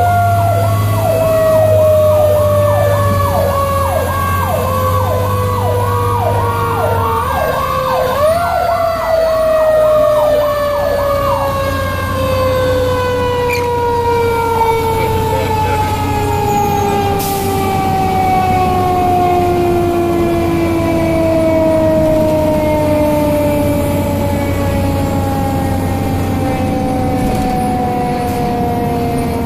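A fire rescue truck's mechanical siren winding slowly down, spun up again once about eight seconds in and then coasting down to a low moan, heard from inside the cab. An electronic siren yelps rapidly over it for the first eleven seconds, with a low drone under both for the first seven.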